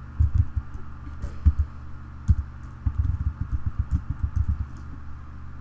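Typing on a computer keyboard: an uneven run of keystrokes, a few scattered at first and then a quicker burst in the second half.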